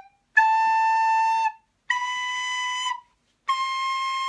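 Soprano recorder playing three separate held notes of about a second each, stepping up the scale to C6, with short breaths of silence between them. The notes sound in tune, the player judging the instrument's pitch very accurate.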